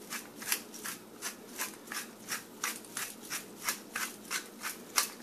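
Hand-twisted pepper mill grinding mixed peppercorns: a short rasping crunch with each twist, in an even rhythm of about three a second.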